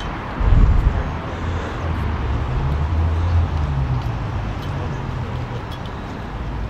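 Outdoor city-square ambience dominated by a low rumble, with a brief louder surge about half a second in and another swell around three seconds.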